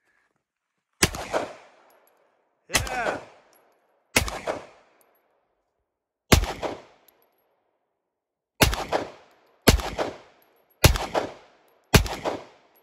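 Eight single gunshots from a compact semi-automatic gun, fired at an uneven pace of one every one to two seconds. Each crack is followed by a short echo rolling back off the quarry's rock walls.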